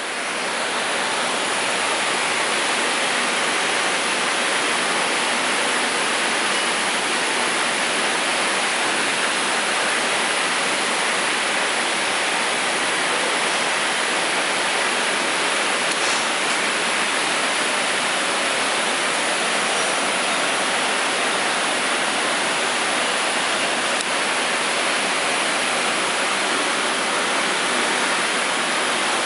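A steady, even hiss with no rhythm and no tone. It comes up in about the first second and then holds level.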